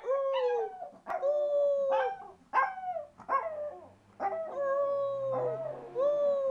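Small dog howling and whining in a string of cries, each sliding down in pitch, two of them long and drawn out: separation distress, howling for its absent owner.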